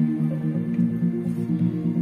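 Music played through a speaker driven by an LA4440 IC amplifier board with a bass/treble tone board, in a sound test. The sound is bass-heavy, with held notes and little treble.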